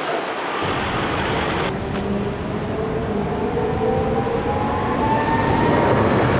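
Hiroden articulated low-floor tram approaching on street track: a low rumble of wheels on rail with an electric traction-motor whine that rises slowly in pitch.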